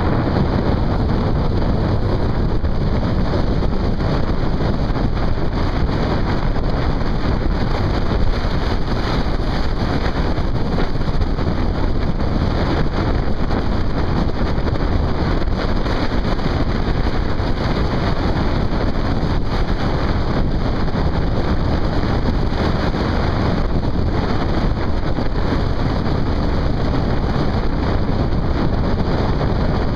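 Steady wind buffeting on the microphone of a camera riding on a moving motorcycle, with the motorcycle's running and road noise beneath it.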